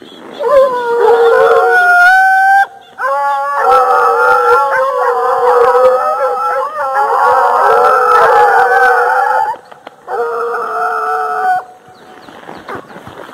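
Pack of American hunting hounds baying and howling on a trail, several long drawn-out voices overlapping. The cries come in three stretches, with short breaks about 3 seconds and 10 seconds in.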